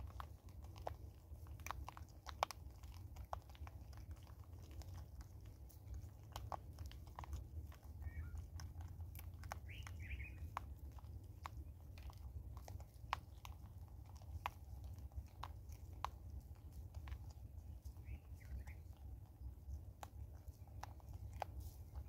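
Vervet monkeys crunching and chewing birdseed and maize kernels close by, with sharp irregular cracks as the seeds break.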